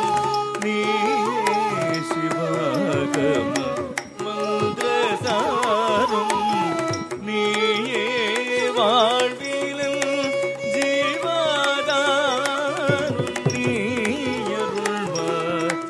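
Carnatic music accompanying a Bharatanatyam dance: a sliding, heavily ornamented melody over quick, frequent drum strokes.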